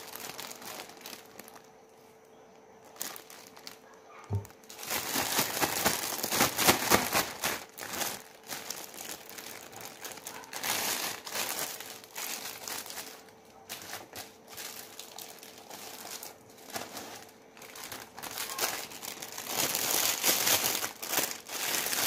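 Thin clear plastic bag crinkling and rustling as it is handled, in repeated bursts, loudest about five seconds in and again near the end. A soft thump comes just after four seconds.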